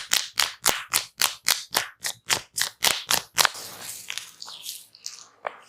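Rapid, even hand strikes on the head in a percussive head massage, about four a second, stopping about three and a half seconds in. Softer rubbing follows.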